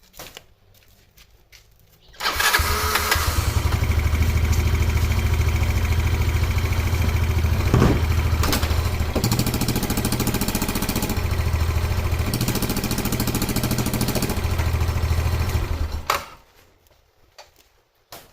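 Yamaha Breeze 125 scooter engine started about two seconds in, run steadily with an abnormal exhaust noise, and shut off about 16 seconds in.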